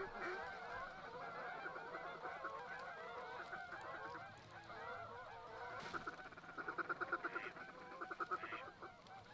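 A large flock of waterfowl calling over one another, a dense chorus of overlapping honks. From about six and a half seconds in, a fast, louder run of evenly spaced calls stands out twice before fading.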